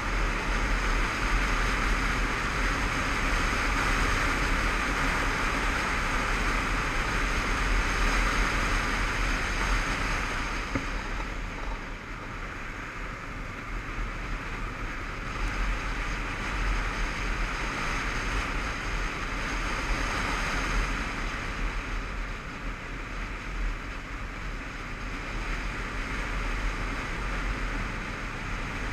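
Motorcycle on the move: wind rushing over the helmet-mounted microphone, with the engine running low beneath it. The rush eases about eleven seconds in, builds again a few seconds later and eases once more near the end.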